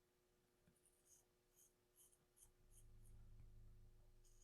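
Razor scraping through lathered stubble: a string of short, faint scratching strokes. A faint low hum joins in from a little under three seconds in.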